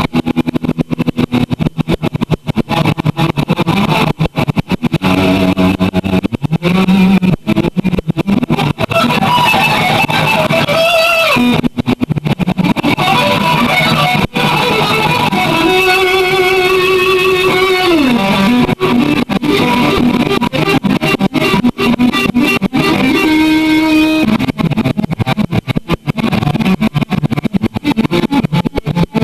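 Electric guitar played through effects, held notes wavering with vibrato, with notes sliding down in pitch a couple of times.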